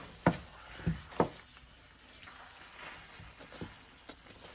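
Wooden spatula stirring thick semolina halwa in a frying pan, knocking against the pan: three sharp taps in the first second or so, then a few fainter ones near the end.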